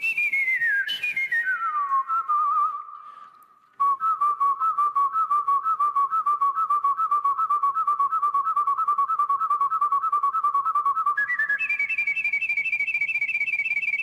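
Solo human whistling with no accompaniment. A melody glides down from a high note to a low one over the first two seconds and breaks off briefly. It then warbles fast on one low note for several seconds and jumps up to a higher warbling note near the end.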